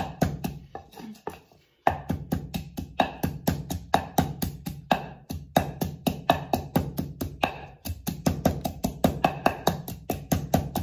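Wooden pestle pounding dried chilies and garlic in a mortar, in a steady run of dull knocks about three to four a second, with a brief break about a second in. Background music plays underneath.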